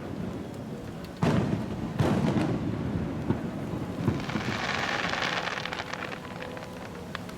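Aerial fireworks exploding: two deep booms about a second apart, followed by a dense crackling shower of crackle shells that fades out.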